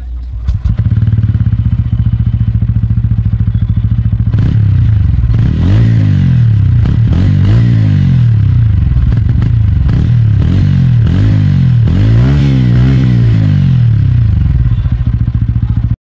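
TVS Ronin 225's single-cylinder engine and exhaust: it starts about half a second in and idles, then is revved in a series of quick throttle blips, the pitch rising and falling each time. It settles back to idle near the end. It is loud at the muffler, about 100 dB on the meter at the peaks.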